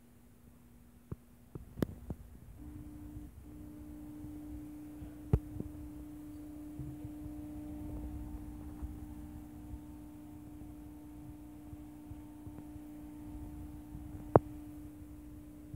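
Small electric motor of a conveyor-belt prototype running with a steady hum, its pitch stepping up slightly about three seconds in. A few sharp clicks and knocks from the mechanism sound over it, the loudest near the end.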